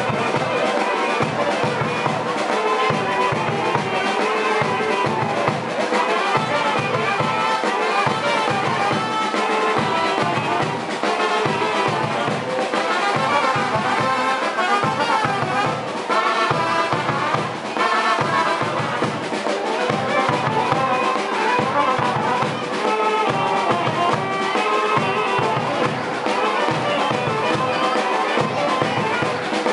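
Brass band music, with trumpets and trombones playing over a steady beat.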